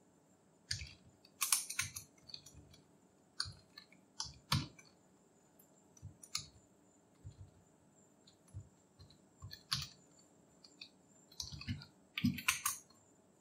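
Computer keyboard keys clicking in scattered, irregular keystrokes with pauses between them, as a line of code is edited, with a quick run of several keystrokes near the end.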